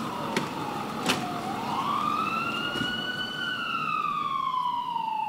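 Emergency vehicle siren in a slow wail: its pitch falls, climbs for about two seconds, then slides down again. Two sharp clicks sound in the first second or so.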